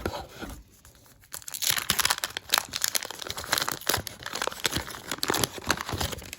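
Wax-paper wrapper of a 1989 Fleer baseball card pack being crinkled and torn open. After a sharp click and a brief lull, about a second in it becomes a dense, rapid crackling that lasts until nearly the end.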